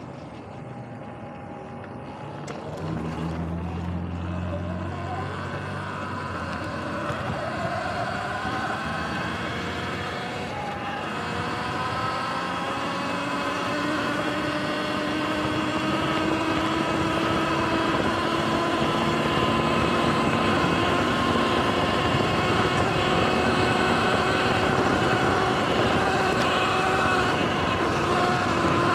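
Sur-Ron electric dirt bike's motor whining: several thin tones climb in pitch as the bike gathers speed, then hold steady, over a steady rush of wind noise.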